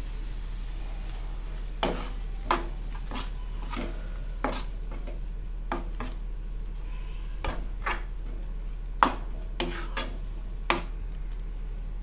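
Metal spoon stirring ground tomato paste into onion masala in a nonstick kadai, with irregular clicks and scrapes of the spoon against the pan starting about two seconds in.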